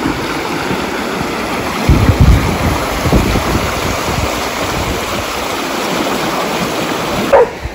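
Shallow creek water rushing over stones in riffles, a steady loud wash, with a few low thumps about two and three seconds in. A brief high cry is heard just before the end.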